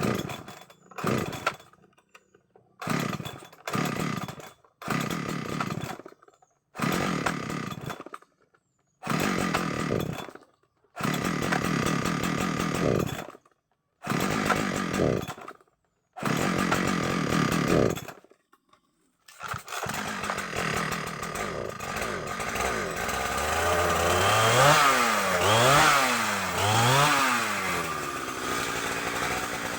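Chainsaw engine in a series of short bursts separated by silent gaps, then running continuously from about two-thirds of the way in, revving up and down several times near the end.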